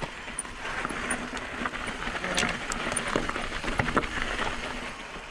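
Mountain bike moving over a loose, rocky trail: a steady crunching hiss of gravel under the tyres, with scattered clicks and knocks.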